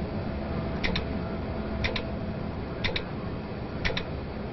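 Mechanical countdown clock ticking off the seconds: four sharp double clicks, one a second, each click a quick pair, over a steady low hum.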